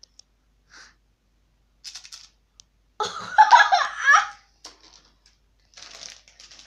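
A boy laughing loudly in one burst of about a second and a half, a few seconds in, after faint short sounds.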